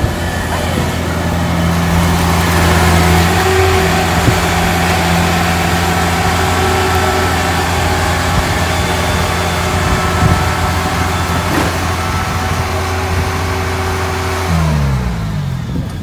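Kubota DC-70 Plus rice combine harvester running under load: its diesel engine and threshing machinery make a loud, steady drone. Near the end the engine note falls as it slows.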